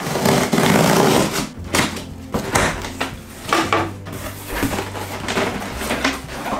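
A box cutter slices through packing tape along a cardboard shipping box, loudest in the first second and a half. Then come crackles and scrapes as the tape pulls away and the cardboard flaps are opened.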